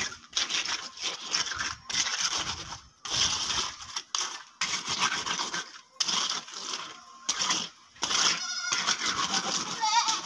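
A trowel scraping and rubbing across wet concrete in repeated strokes, about one a second, as the fresh surface is smoothed and finished.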